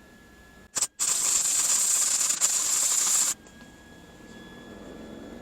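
Small MIG welder arc crackling and hissing as it welds thick steel: a brief strike just under a second in, then a steady burn of about two seconds that stops abruptly. The welder is small for the thick metal, and the weld goes in not very deep.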